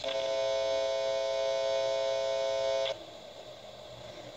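Small hand-crank emergency radio's speaker giving out a steady tone, several pitches at once, while it is tuned on the weather band. The tone cuts off suddenly after about three seconds, leaving faint static.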